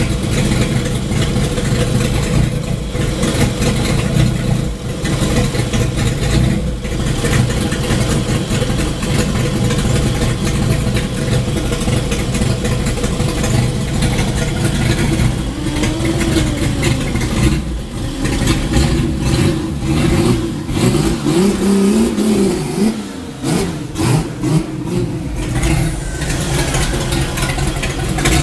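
Modified Chevrolet Opala's engine running loudly through its open exhaust at a lumpy idle. Its note rises and falls a few times past the middle.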